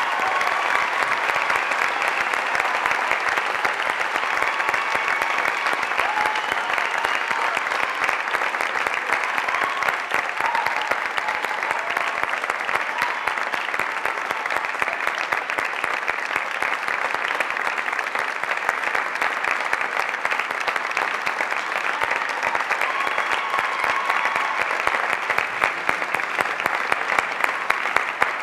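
An audience applauding, steady clapping from many hands for a long stretch; near the end single claps stand out more sharply.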